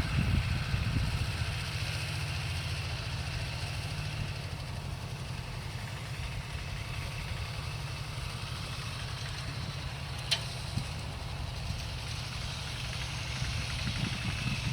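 A small engine running steadily at an even low speed, a little louder near the end, with one sharp click about ten seconds in.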